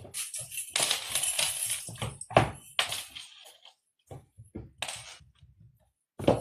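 Cat toy clattering and rattling as cats bat it about, in irregular bursts with sharp clinks and a loud knock about two and a half seconds in and another near the end.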